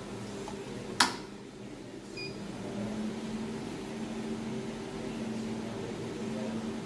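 Desktop jewelry laser welding machine switched on: a sharp click about a second in, then the machine runs with a steady hum, with a short faint beep soon after the click.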